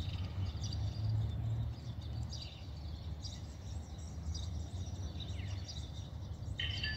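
Outdoor background: scattered short bird chirps over a low steady rumble. Near the end a steady, higher tone with several pitches starts abruptly.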